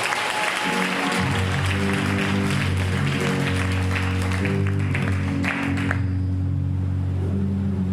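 Congregation clapping over steady, sustained low musical chords. The clapping stops about six seconds in while the chords carry on.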